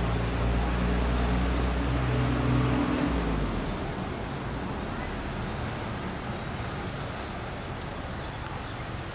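A motor engine running with a low, steady hum, which ends about three seconds in, leaving a steady outdoor background noise.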